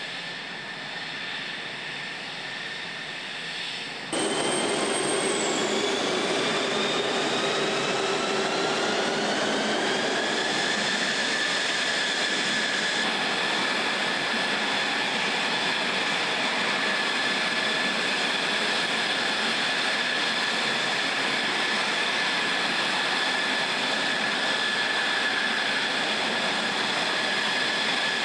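F-16 jet engine whining, first at a lower level; about four seconds in it is suddenly louder, and its high whine rises in pitch for several seconds before holding steady.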